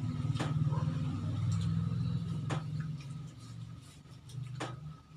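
A low engine drone with a fine, even pulse, fading down after about three seconds. Three sharp clicks from people eating by hand sound over it.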